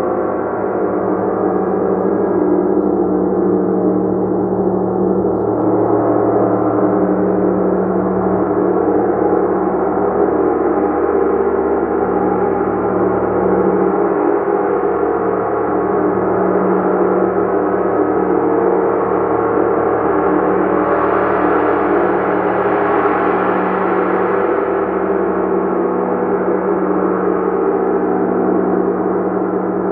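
Large gong played continuously, its many overtones held in a dense, steady shimmering wash, with the upper overtones swelling about three-quarters of the way through.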